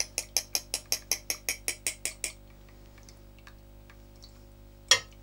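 Metal kitchen sieve worked over a stainless steel bowl while the braising vegetables drain into the sauce: quick, even metallic clicks about five a second that stop a little past two seconds in, then one more sharp click near the end.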